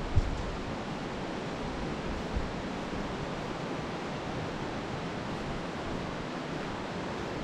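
Steady rushing outdoor noise with no distinct source, broken by a low thump just after the start and another about two seconds later.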